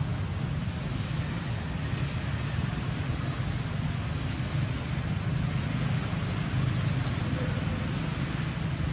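Steady outdoor background noise: a low rumble with an even hiss over it and no distinct calls or impacts.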